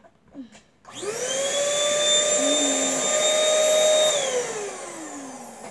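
Mini Dirt Devil vacuum cleaner switched on: its motor whines up to a steady high pitch and runs for about three seconds. It is then switched off and winds down with a falling whine.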